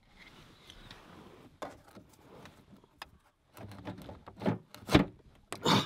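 Handling noise inside a car cabin as a cord is pulled and worked against the interior trim: quiet rustling with a couple of small clicks, then several louder knocks and thumps in the last two seconds or so.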